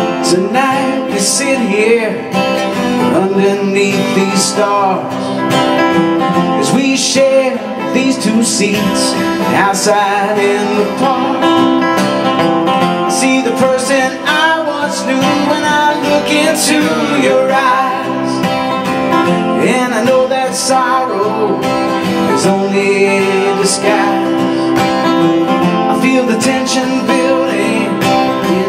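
Two acoustic guitars played together in a live song, the music running steadily without a break.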